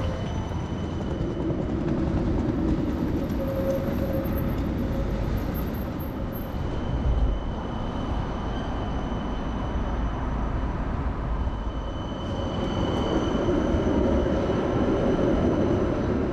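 Helsinki tram running on its rails: a steady rumble of wheels and motor with a faint thin high whine over it.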